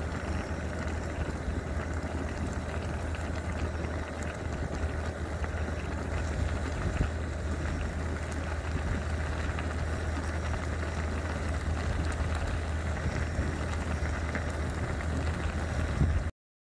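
Instant ramyeon broth boiling in a foil tray on a portable butane gas stove: a steady bubbling and hiss over a low rush. It cuts off abruptly near the end.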